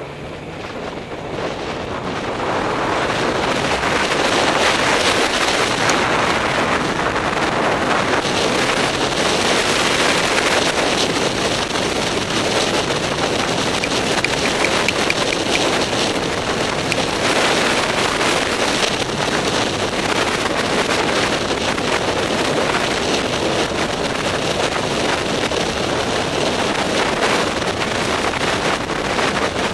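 Heavy wind noise on a helmet-mounted camera's microphone from a motorcycle ride on a Yamaha MT-09. It builds over the first few seconds as the bike gathers speed, then stays steady.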